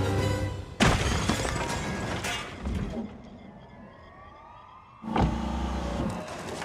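Film action soundtrack of cars: a sudden loud burst of vehicle noise about a second in, a quieter stretch with police sirens wailing and gliding in the distance, then another loud burst of vehicle noise near the end.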